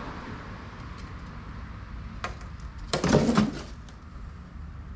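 Parts of a swamp cooler being handled: a single click, then a brief burst of clattering and knocking about three seconds in.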